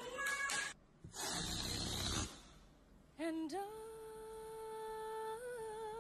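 A brief rushing noise about a second in, then a singing voice holding one long note from about three seconds in, steady at first, with vibrato near the end.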